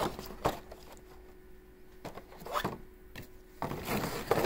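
Clear plastic box insert being handled: a few light clicks and taps of plastic, then rubbing and crinkling as the sheet slides against the box near the end.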